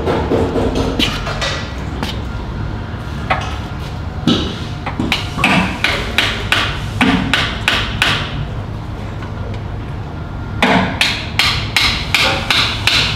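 Hammer striking the handle of a screwdriver driven as a chisel against a car's oil pan seam to break the pan loose. The blows come in two quick runs, the first about four seconds in and the second near the end.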